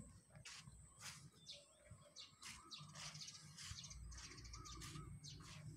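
Faint outdoor ambience: small birds chirping in short, high calls, over a steady high-pitched whine.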